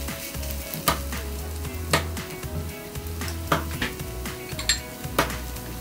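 Chopped onion sizzling gently in oil in a small cast iron pan, sautéing to soften. A spatula stirs and taps against the pan a few times, each tap a sharp click, over quiet background music.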